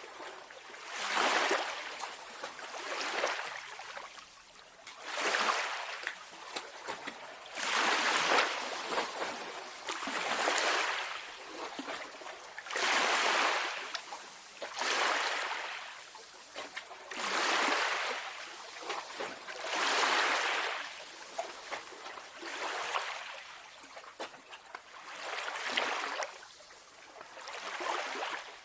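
Small sea waves washing ashore and drawing back, a soft hiss that swells and fades about every two seconds, with light splashing between swells.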